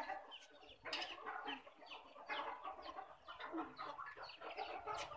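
Chickens clucking faintly, a scattered run of short calls.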